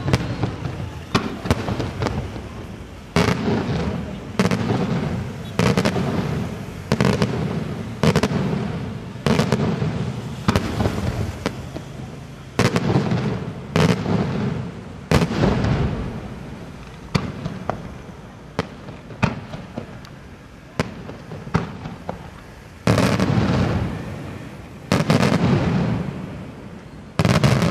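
Daytime fireworks display: aerial smoke shells bursting one after another, about one loud report every second or so, each trailing off over about a second, with sharper cracks in between.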